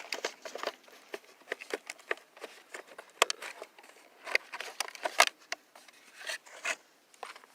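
Scattered light clicks, taps and rattles of a small plastic RC car being handled and turned over by hand, with no motor running: the car has stalled with a loose drive gear.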